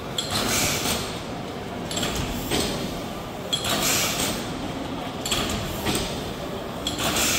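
Double-acting cross-compound stationary mill engine with Corliss valves (Burnley Iron Works, 1903) running, a hissing whoosh repeating about every one and a half seconds over a steady low mechanical rumble.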